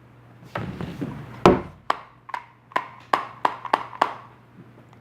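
A can of dipping tobacco being packed by tapping it: a run of sharp taps, about three a second, with one heavier thump about one and a half seconds in.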